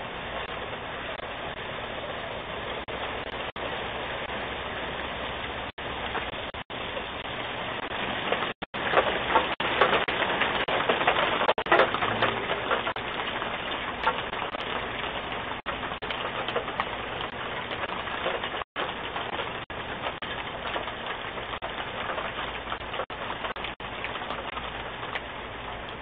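Steady outdoor hiss picked up by a Ring doorbell camera's microphone, cutting out briefly several times, with a louder crackling stretch about nine seconds in.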